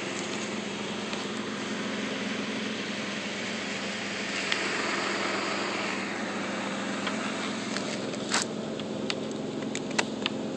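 A vehicle engine idling steadily, with a few sharp clicks and taps in the last couple of seconds as the rubber windshield gasket is handled against the glass.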